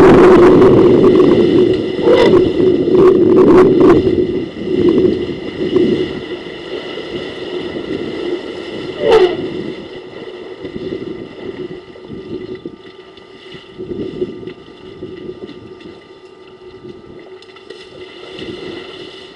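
Elephants splashing and wading through a waterhole: loud churning water at first, dying down over the second half.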